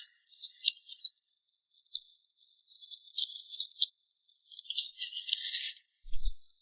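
Close-miked eating sounds of cream cake: a steady run of sticky, crackly clicks and smacks, with a short low thump near the end.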